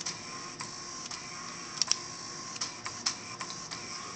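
3D-printed plastic pen plotter running, its small motors humming steadily with irregular sharp clicks, two or three a second, as it works through a drawing.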